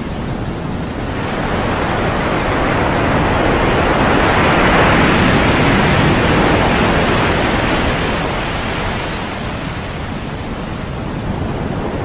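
Sea surf: a wave washes in, swelling to its loudest about five seconds in and ebbing away over the next few seconds, with the next, smaller swell starting near the end.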